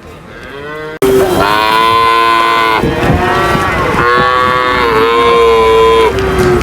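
Cow mooing loudly: a run of long, drawn-out moos one after another, starting abruptly about a second in.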